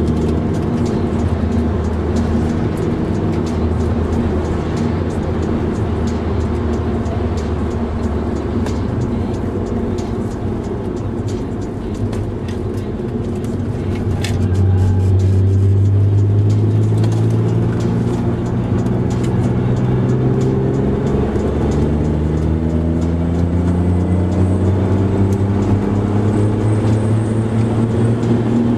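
Car engine under hard driving heard from inside the cabin, easing off briefly and then pulling again, with its note climbing in several rising sweeps near the end as it accelerates. There is a single sharp click midway.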